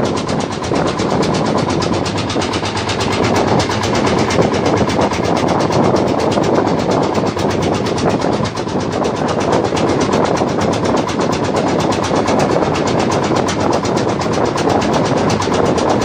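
A small fishing boat's engine running steadily under way, with a rapid, even beat and the rush of water and wind over it.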